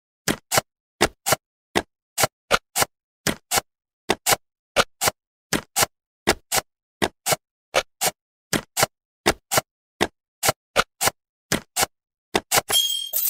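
Jigsaw-puzzle sound effect: short snapping clicks, mostly in quick pairs, repeating as each animated piece drops into place. Near the end a bright sparkling chime starts, marking the finished puzzle.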